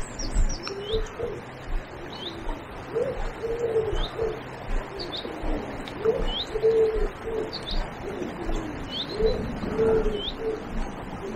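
A pigeon cooing in repeated phrases, with a small bird giving short high, falling chirps about once a second.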